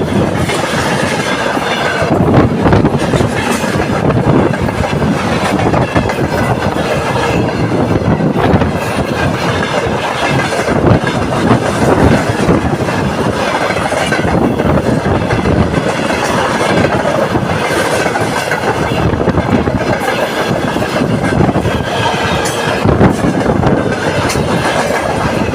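Freight train rolling past close by, its wheels clattering over the rail joints in an uneven run of knocks, with a faint thin squeal from the wheels.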